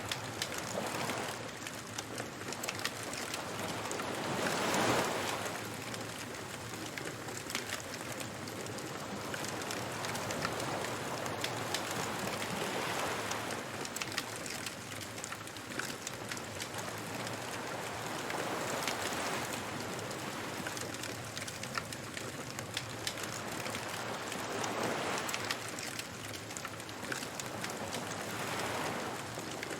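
Waves washing ashore, swelling and fading every few seconds, with a bonfire crackling and popping throughout.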